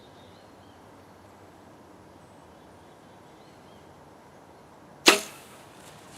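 Quiet outdoor field ambience with a few faint high chirps, broken about five seconds in by a single sudden, loud, sharp burst that dies away within half a second.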